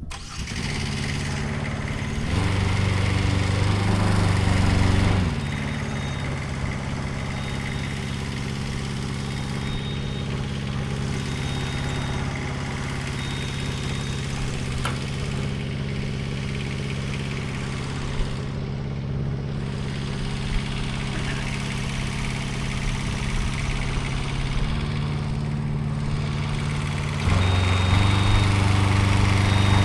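Aerial lift's engine running steadily, stepping up to a higher, louder speed about two seconds in, dropping back after about five seconds and speeding up again near the end.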